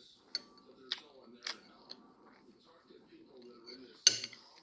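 Close-miked chewing of a mouthful of rice soaked in milk: wet mouth clicks and smacks about every half second. A loud clack near the end, typical of a metal spoon knocking the ceramic bowl.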